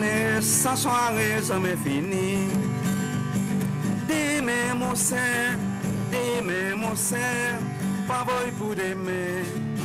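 Soundtrack music: a singer's voice, wavering with vibrato, over steady guitar accompaniment.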